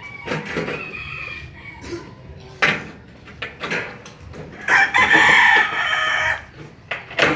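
Aviation tin snips cutting pre-painted sheet-metal gutter, heard as a few sharp clicks of the blades. A rooster crows once, loudly, about a second and a half long, starting near the middle.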